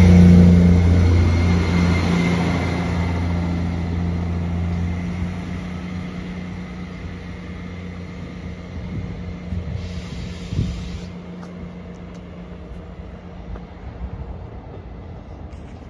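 Class 158 diesel multiple unit pulling away, its engine drone loud at first and fading steadily as the train moves off into the distance.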